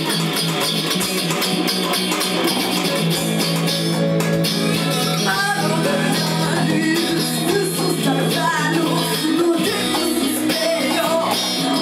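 Live band music: an amplified electric guitar playing, with a woman's singing voice coming in about five seconds in.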